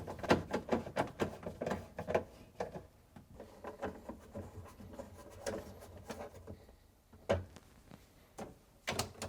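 Small clicks, ticks and light rattles of screws being driven back into a refrigerator's plastic top panel, dense at first and then sparser, with a couple of louder knocks later on.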